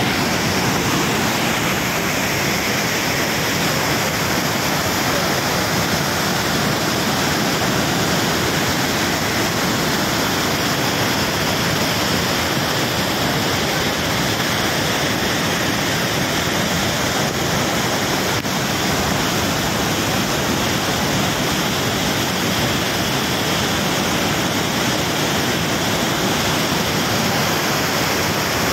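Waterfall in flood after heavy rain, a muddy torrent of water pouring down a rocky slope: a steady, loud rush of water.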